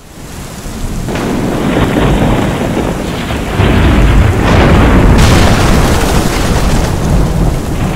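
Thunderstorm sound effect: rain hissing with thunder rumbling, fading in at the start and growing louder about halfway through.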